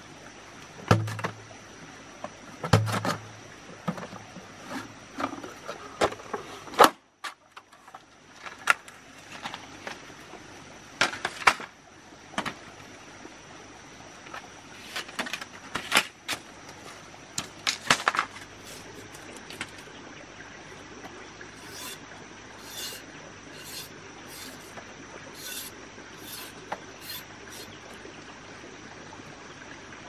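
Irregular knocks, taps and scrapes of hand work, loudest in the first seven seconds, with a faint steady high whine underneath. Near the end come a run of short, light high ticks.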